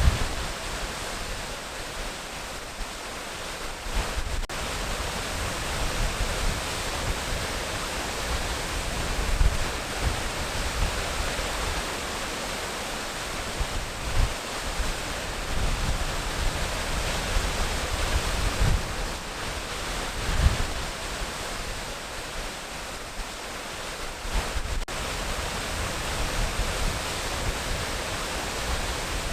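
Waterfall: a steady, even rush of falling water, with irregular low rumbles that may be wind buffeting the microphone.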